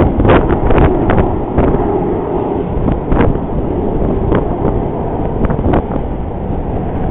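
Wind buffeting the camera's microphone: a loud, dense low rumble with short sharp crackles, the loudest of them in the first second.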